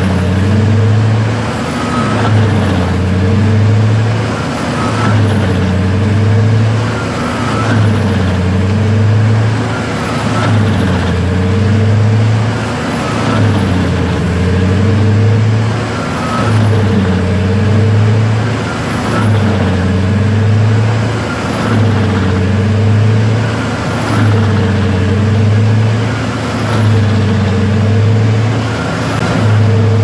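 Drum wood chipper driven by a Scania DC16 V8 diesel, running hard while chipping a large log. The engine note dips and recovers about every two seconds as the drum takes each bite of wood, with a high whine rising and falling on the same beat.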